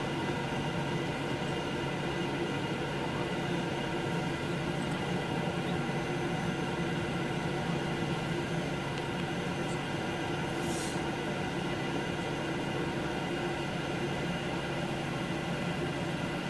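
Steady hum and whine inside the cabin of a Boeing 737-800 waiting on the ground, its CFM56 engines at idle, with a brief hiss about ten seconds in.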